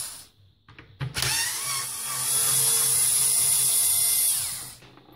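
Small cordless electric screwdriver backing a stainless steel screw out of a wooden speaker grill rim. It starts about a second in, speeds up briefly, runs steadily for about three and a half seconds and winds down near the end.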